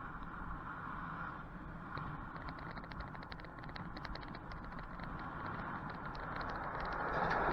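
Steady road and wind noise from a bicycle camera, with a run of light, irregular ticking and rattling from about two seconds in. Near the end a passing vehicle's noise swells to its loudest.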